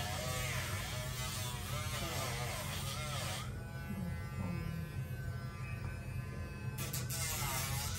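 Dremel rotary tool running without stopping as it grinds a dog's nails, a buzzing whine whose pitch dips and recovers again and again as the spinning bit is pressed on the nail. From about three and a half seconds to about seven seconds it runs free at a steady pitch, without the grinding rasp.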